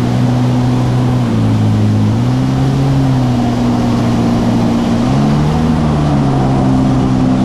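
Jet ski engine running hard at speed, its pitch dipping and rising a few times as the throttle changes.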